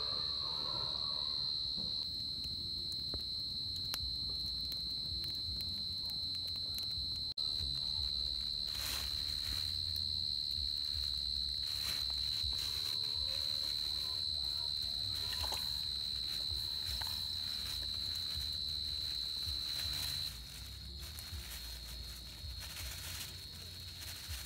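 Night insects calling in one steady, high-pitched drone that drops in level about twenty seconds in, with a few scattered clicks and rustles over it.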